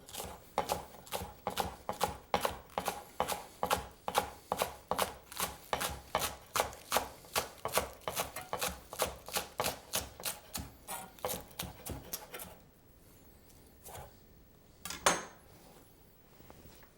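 Kitchen knife chopping green onions on a cutting board: quick, even strokes, about three a second, stopping near the end with one last stroke a couple of seconds later.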